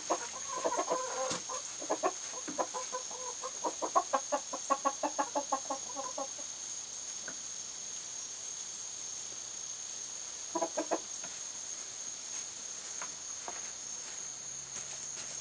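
A chicken clucking: a quick run of short clucks over the first six seconds, then a brief burst of clucks about ten seconds in. A steady high-pitched tone runs underneath.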